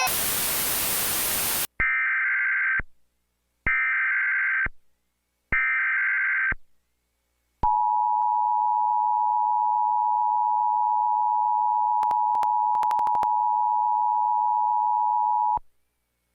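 Emergency Alert System interruption: a brief burst of static, then the three roughly one-second bursts of SAME header data tones, then the steady two-tone EAS attention signal held for about eight seconds, with a few clicks partway through it.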